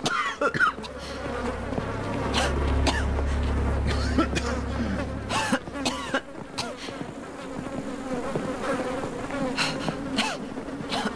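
A swarm of flies buzzing over rotting corpses, the buzz wavering up and down as they fly about. A low hum swells about two seconds in and fades out around five and a half seconds, with scattered sharp knocks through it.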